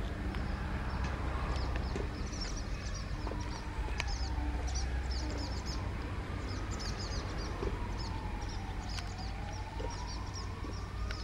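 Small birds chirping in the trees, many short high chirps from about two seconds in, over a steady low rumble. A distant siren wails faintly behind them, slowly rising and falling in pitch.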